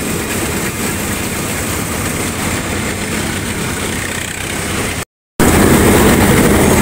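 Combine harvester engine running steadily. The sound drops out completely for a split second about five seconds in, then comes back louder.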